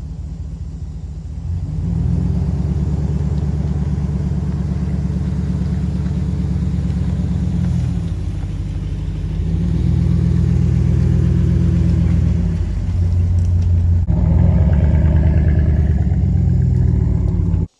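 Road vehicle engine running with a low, steady drone that speeds up and drops back a few times, like a vehicle pulling away and changing gear.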